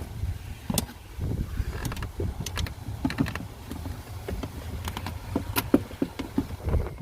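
Irregular clicks, taps and dull knocks from handling a throttle cable and its snap-in housing tabs at the firewall, over a low handling rumble.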